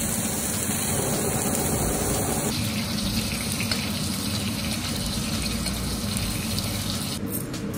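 Ribeye steak searing in hot butter in a carbon steel wok, a steady, dense sizzle, while the butter is spooned over the steak to baste it.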